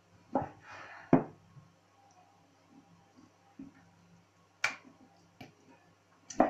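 Chef's knife knocking on a wooden cutting board while slicing raw liver: a handful of sharp knocks, the loudest about a second in, with softer taps between.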